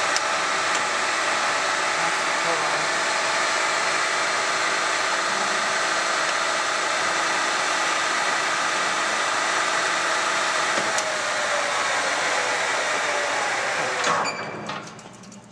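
DoAll LT-13 gearhead toolroom lathe running at high spindle speed, about 1,600 RPM, with a steady whine of motor and gear noise. Near the end there is a clunk and the running dies away quickly as the spindle is stopped.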